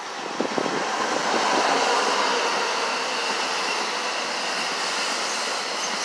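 NJ Transit bi-level commuter train passing close along the platform: a steady rush of wheels on rail that builds over the first two seconds, with a few sharp clicks of wheels over rail joints near the start.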